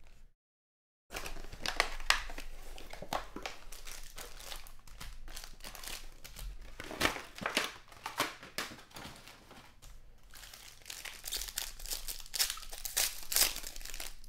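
Crinkling and crackling of packaging and foil trading-card packs as a Panini Prestige football box is opened and its packs are handled and torn open, with many sharp crackles and a louder stretch of crinkling near the end.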